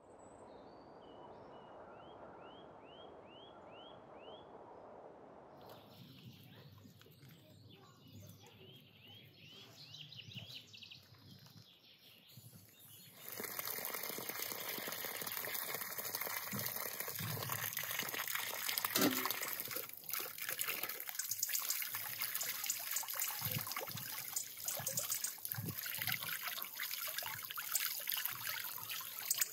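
Water pouring steadily from an outdoor hose pipe, splashing over raw whole chickens being rinsed by hand into a basin. It comes in loudly about halfway through. Before that there is faint outdoor ambience with a run of short rising bird chirps.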